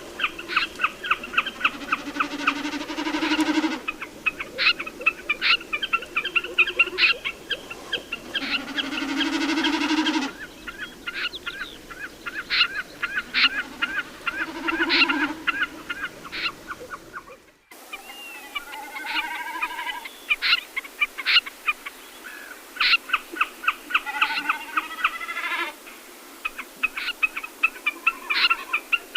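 A dense mix of recorded migratory bird calls played as a night-netting lure: many sharp chip notes and fast trills, with low hooting calls in the first half. The low calls stop at an abrupt splice about two-thirds of the way in, and the chips and trills go on.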